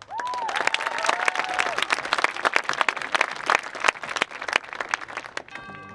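Audience clapping and cheering, starting abruptly after a silent pause, with a few high whoops in the first two seconds. The applause thins near the end as held bell-like music notes come in.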